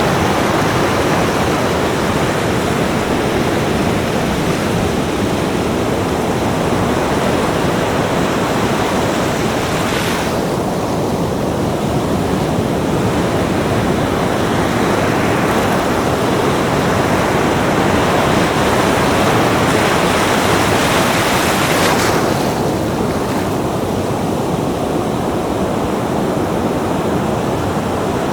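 Ocean surf on a beach: a steady wash of breaking waves, with the hiss of a wave swelling and falling away sharply about ten seconds in, and again about twenty-two seconds in.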